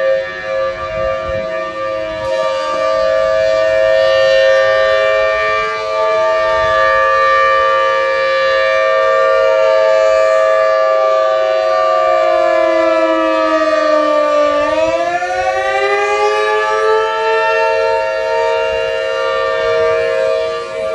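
Outdoor emergency warning siren sounding in a scheduled test: a loud wail on several held steady pitches, with a second tone that slides slowly downward, bottoms out about fourteen seconds in, then climbs back up over a couple of seconds.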